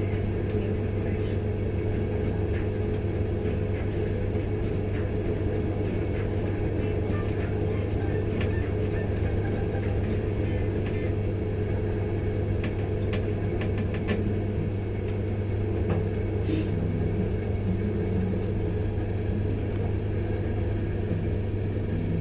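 Pillar drill's electric motor running with a steady low hum while its bit cuts into a metal tube. A quick run of sharp clicks comes a little over halfway through.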